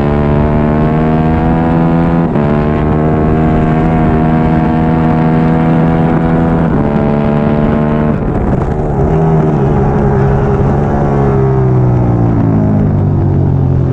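Triumph Daytona 675R race bike's inline three-cylinder engine running hard at high revs, with short breaks in the note about two and seven seconds in. From about eight seconds in the revs fall and swing up and down, dropping again near the end.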